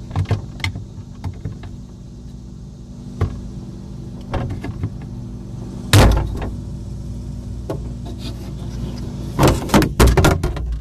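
Scattered clicks and knocks of hands working the plastic gear and housing of a Whirlpool ice maker while trying to advance its timer, with a sharp knock about six seconds in and a quick cluster of clicks near the end, over a steady low hum.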